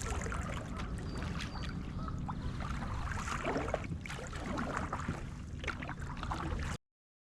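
Kayak paddle dipping and splashing in the water over a steady low rumble; the sound cuts off abruptly near the end.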